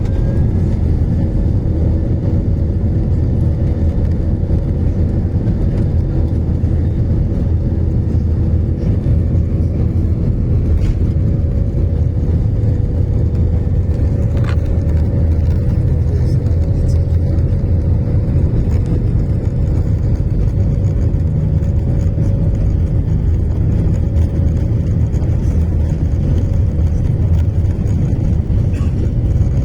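Steady engine drone and low rumble of a passenger airplane heard from inside the cabin, with a constant hum over it.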